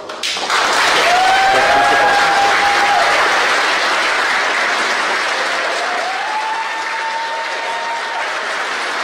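A room of mission-control staff clapping and cheering, breaking out suddenly and keeping up, with a couple of long cheering shouts over the clapping. It celebrates main engine cutoff and successful first-to-second stage separation of the Electron rocket.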